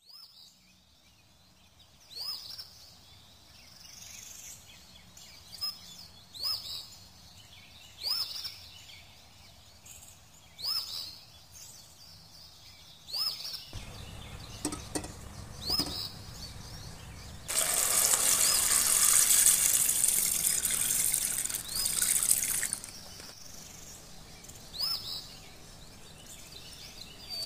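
Eggs clinking into a steel pot, then water running from a tap into the pot for about five seconds. Short bird chirps recur every second or two.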